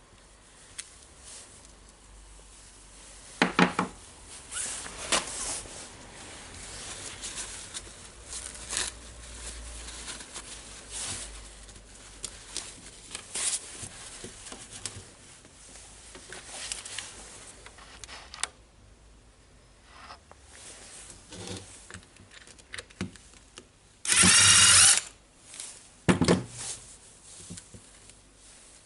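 Workshop handling of a DeWalt D25003 rotary hammer's metal parts with hand tools: scattered clicks, clinks and scraping. About 24 s in comes a loud, rough rattle lasting about a second, in the manner of a ratchet or power driver.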